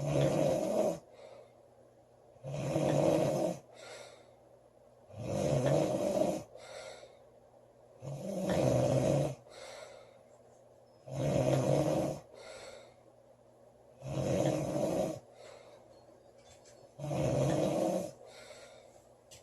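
A woman snoring loudly in a regular rhythm, one snore about every three seconds, each lasting about a second, with a fainter breath between snores.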